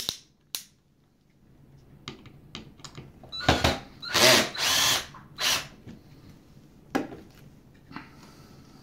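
Cordless drill/driver driving a screw into soft plastic in several short bursts, the longest about a second, with a few scattered clicks around them.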